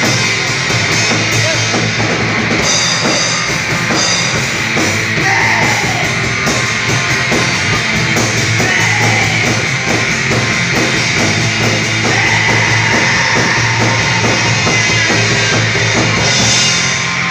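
A grunge band playing live: electric guitars and a drum kit in a loud, steady instrumental passage with no vocals.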